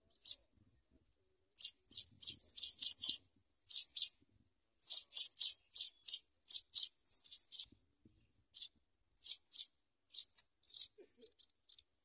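African pipit nestlings begging: a rapid run of short, high-pitched calls in quick clusters, thinning out and fading near the end.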